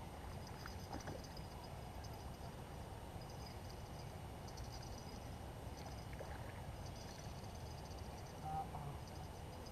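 Faint outdoor ambience: a steady low rumble with bursts of high, thin chirping coming and going throughout.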